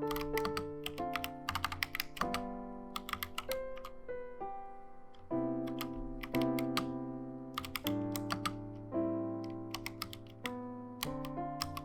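Typing on a Helen 80 custom mechanical keyboard with HolyTom V2 switches and XDA keycaps, the keystrokes coming as irregular clicks and short runs. Background piano music with sustained notes plays throughout.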